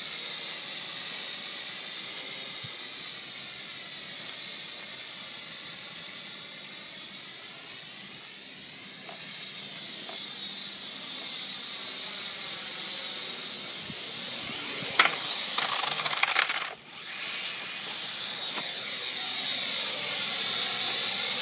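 High-pitched whine of a Blade mQx quadcopter's small electric motors and propellers. About 15 seconds in there is a burst of rattling clatter, a brief cut-out, then the whine returns.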